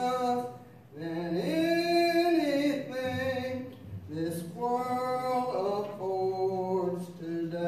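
A solo voice singing a slow gospel song, holding long notes through each phrase.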